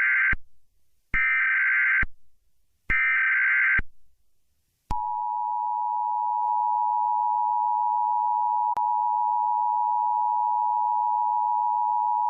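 Emergency Alert System tones for an Amber Alert: three short bursts of warbling data tones (the SAME header), each about a second long, the first already under way. After a gap of about a second, the steady two-tone attention signal starts about five seconds in and holds, announcing the emergency message.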